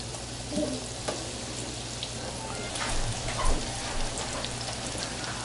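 Parsley, onion and egg batter fritters sizzling in hot deep-frying oil, a steady hiss with small scattered pops.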